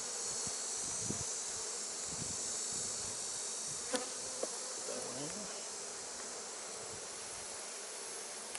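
Honeybees buzzing steadily around an open hive, a dense, even hum, with one sharp click about four seconds in.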